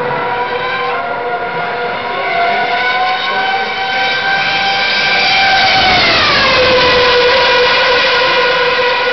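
A Formula One car's 2.4-litre V8 engine running at high revs. Its pitch falls sharply about six seconds in, then holds steady at the lower pitch.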